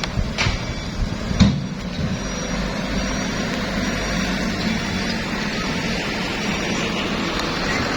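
Diesel engine of heavy equipment (excavator and dump truck) running steadily, with two sharp knocks about half a second and a second and a half in.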